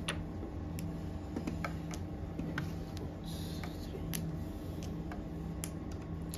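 Mahjong tiles clicking as they are drawn and discarded on the felt of a mahjong table: irregular sharp clacks, with a brief scrape about three seconds in, over a steady low hum.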